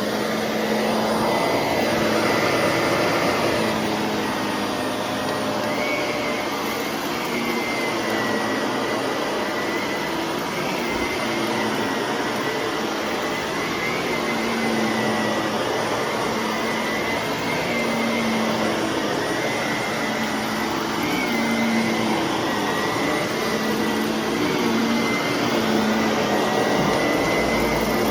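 Shark vacuum cleaner running continuously while vacuuming, a steady motor hum and whine that waver slightly in pitch and strength every couple of seconds.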